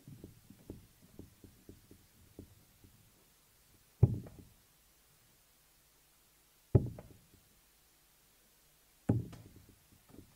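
Three darts striking a Winmau Blade 6 sisal bristle dartboard, one at a time: three sharp knocks about two and a half seconds apart, the first about four seconds in. Faint small clicks and knocks come before them.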